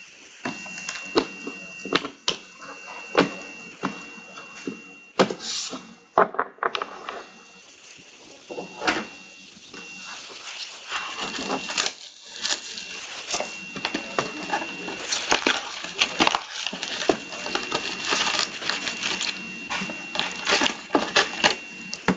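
Packs of trading cards and their box being handled: foil wrappers crinkling and rustling, with irregular sharp clicks and light knocks as packs are set down and stacked on a table, busiest in the second half.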